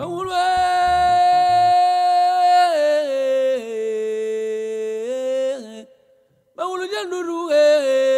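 Music: a voice holding long sung notes that step down in pitch, with a short break about six seconds in. The backing beat stops about two seconds in.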